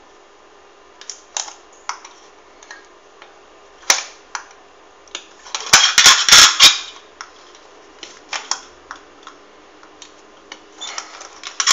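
Self-drilling screw turned by hand and pressed through the bottom of an aluminium soda can: scattered clicks and scrapes of the screw point on the thin metal, with a cluster of loud sharp crackling knocks about six seconds in as it pushes through.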